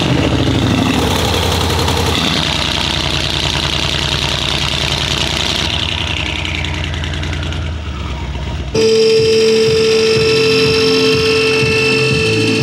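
Car engine running steadily for about nine seconds. It is cut off abruptly by a different steady, high whirring sound with even sustained tones.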